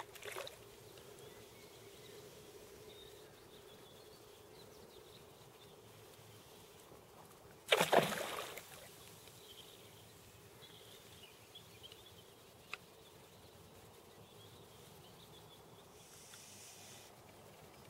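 A hooked rainbow trout splashing at the surface of the water: a short splash at the start and a much louder splash about eight seconds in, with faint outdoor background between.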